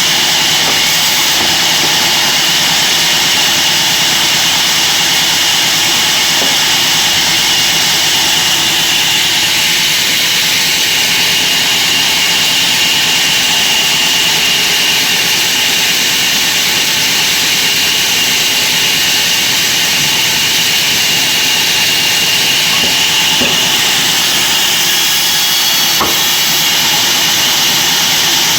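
Sawmill band saw running steadily: a loud, even hiss with a steady high whine.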